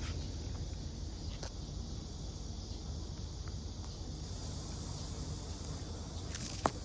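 Steady high chorus of insects over a low rumble, with a few faint clicks and one sharp click near the end.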